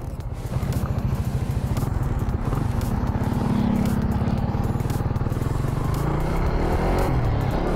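Motorcycle engine running as the bike rides off, louder from about half a second in, its pitch climbing near the end as it speeds up.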